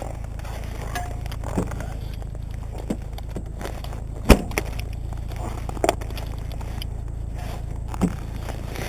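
A Veloped rollator rolling over frozen, rutted snow: a steady low rumble with scattered knocks and clicks, the sharpest about four seconds in.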